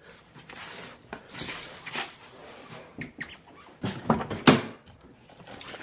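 A series of irregular knocks and clicks, the loudest about four and a half seconds in.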